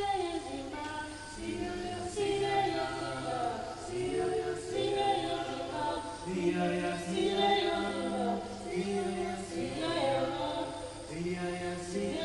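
Choir singing in harmony, holding long notes that change every second or two.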